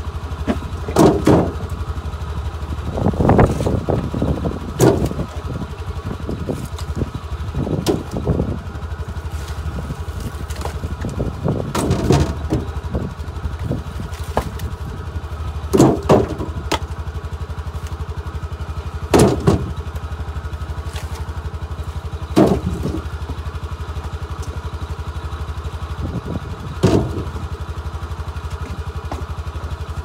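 A steady low engine-like drone with short louder surges every few seconds.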